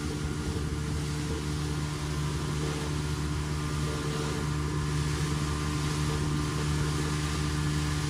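An engine running steadily at constant speed: a low, even hum with a steady hiss over it.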